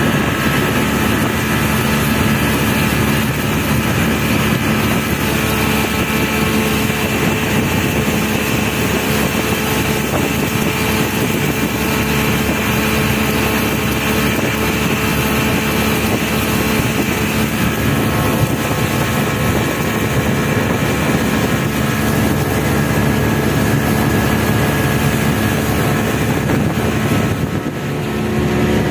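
Speedboat's outboard motor, cowling marked 75, running steadily at cruising speed, with the rush of water and wind as the boat planes. The level dips briefly near the end.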